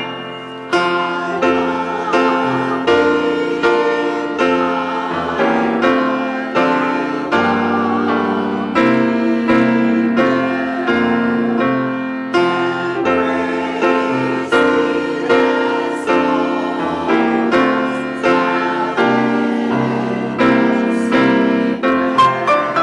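Grand piano playing a piece of church music, notes and chords struck in a steady rhythm.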